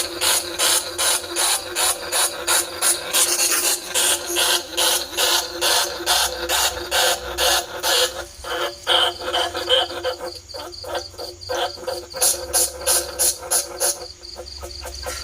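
Bandicoot rats squealing in rapid repeated squeaks, about three a second, coming faster near the end: a recorded rat call played to lure bandicoot rats and field rats to traps.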